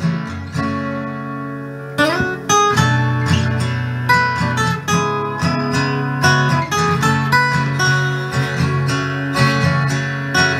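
Acoustic guitar playing an instrumental passage of the song. A chord rings out and fades, then about two seconds in the notes slide upward and a steady picked pattern takes over.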